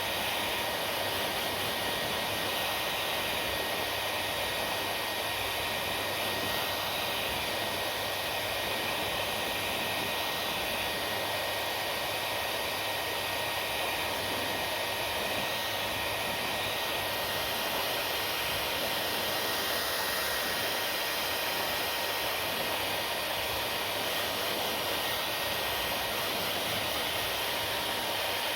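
Hair dryer running steadily, blowing air with an even noise and a faint high whine from its motor.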